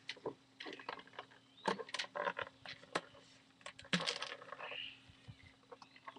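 Irregular sharp clicks and knocks, several a second at times, from the homemade airsoft cannon being handled and loaded.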